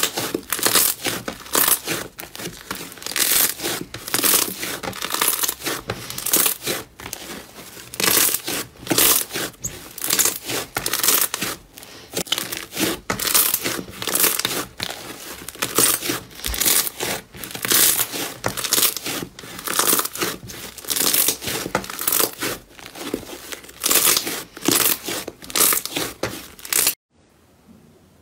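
Fluffy white slime squeezed and pulled apart by hand, giving dense waves of crackling and tearing sounds as it is worked. The crackling cuts off near the end, leaving only a few faint ticks.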